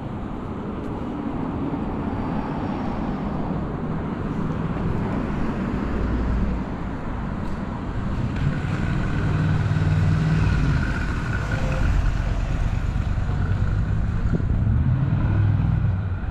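City street traffic: motor vehicles passing on the road alongside, a steady low rumble that grows louder from about halfway through.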